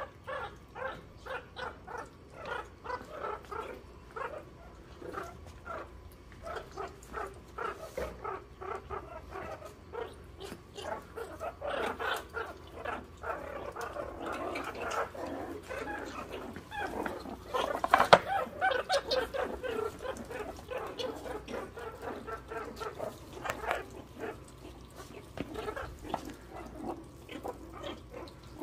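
Several meerkats giving rapid, repeated short calls, several a second, excited over food being handed out. A louder burst of calls comes about eighteen seconds in.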